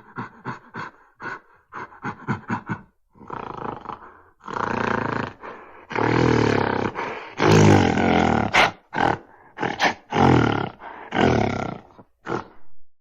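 King Kong giant-gorilla roar sound effects: first a quick run of short grunts, about four a second, then several long, loud roars and a string of shorter roars.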